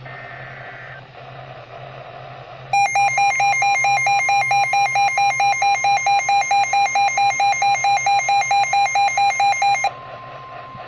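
NOAA Weather Radio alert: the tail of a SAME digital header burst, a brief two-tone data chirp, then radio hiss. About three seconds in, a loud, shrill pulsing beep starts at about four beeps a second and stops suddenly about seven seconds later. Under it runs the steady 1050 Hz warning alert tone, which is still sounding after the beeping stops.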